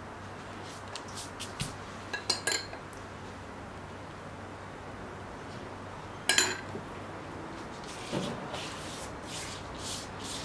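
A spoon clinking against a dish a few times, with one sharp clink about six seconds in, then a pastry brush swishing in short strokes over a sheet of yufka, spreading the sauce.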